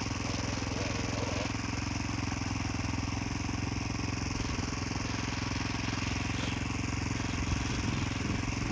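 Enduro dirt bike engine idling steadily close by. During the first second or so, another dirt bike's engine revs up and down in the distance as riders climb a muddy slope.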